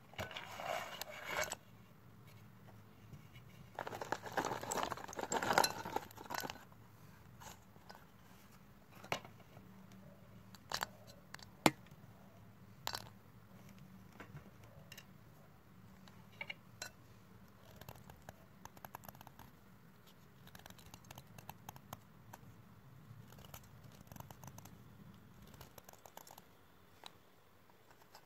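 Colourful chalk sticks and fragments clattering and crunching in a clay bowl. Two dense bursts of crackling come in the first six seconds, followed by scattered sharp clicks and faint small crackles.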